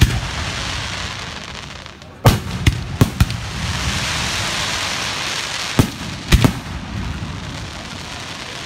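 Aerial fireworks bursting overhead with sharp bangs. There is one at the start, a quick run of four about two to three seconds in, and a few more around six seconds. A steady hiss of sparks runs between them.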